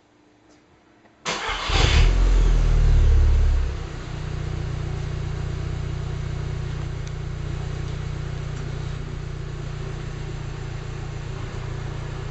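Volkswagen Golf Mk6 R's 2.0 TFSI turbocharged four-cylinder engine on its stock exhaust starting about a second in. It flares up in revs for about two seconds, then settles to a steady idle.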